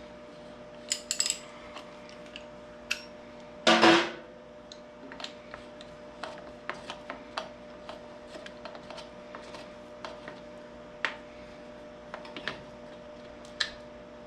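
Hand tools working on a tractor's metal fittings: irregular small clicks and taps of a wrench against metal, with one louder metallic clatter about four seconds in.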